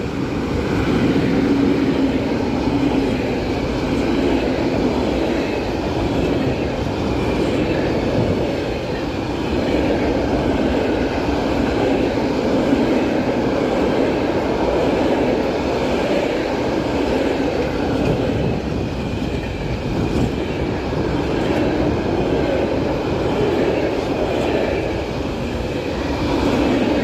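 Freight train hauled by an ET22 electric locomotive passing close by: a steady, loud rumble of wagons rolling on the rails that swells and eases a little but never stops.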